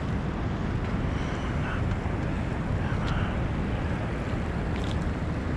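Steady rush of fast-flowing spillway tailwater with wind buffeting the microphone, heavy at the low end. A couple of faint clicks come through about three and five seconds in.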